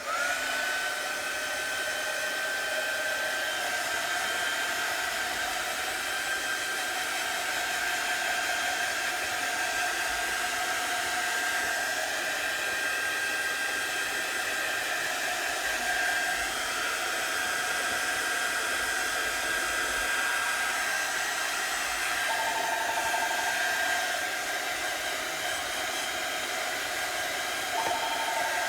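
Handheld hair dryer switched on and blowing steadily to dry freshly applied chalk paste. Its motor whine rises briefly as it starts, then holds at one pitch with a steady rush of air.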